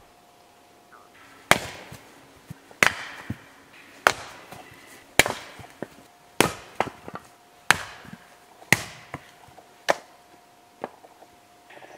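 Axe splitting firewood: about eight sharp chopping strikes into wood, a little over a second apart, with lighter knocks of wood between them.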